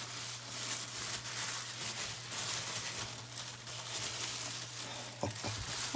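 Packaging being unwrapped by hand: continuous crinkling and rustling, over a steady low hum.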